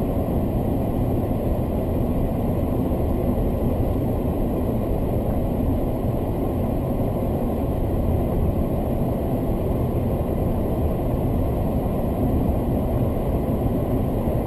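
Steady low rumbling noise with no distinct knocks, tones or voices.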